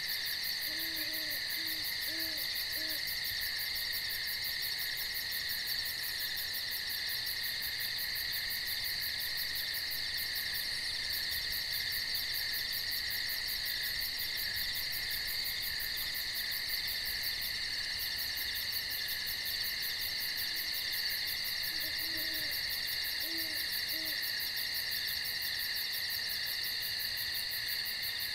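Steady chorus of night insects: a shrill, even drone in several high pitches with a fast pulsing on top. A low owl hoots a short run of four or five notes about a second in, and again about three-quarters of the way through.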